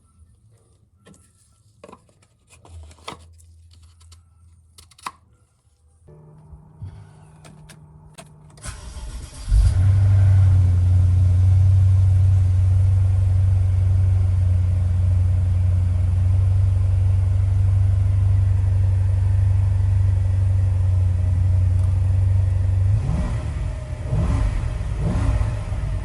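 Clicks and handling sounds, then a low hum about six seconds in, then the BMW N63B44 twin-turbo V8 cranks and starts about nine seconds in and runs at a steady idle, dipping slightly near the end.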